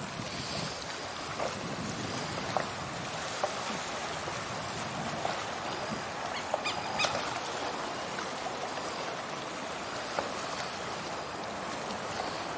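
Shallow high-tide water washing and lapping over flat sand in a steady wash, with a few faint short chirps about halfway through.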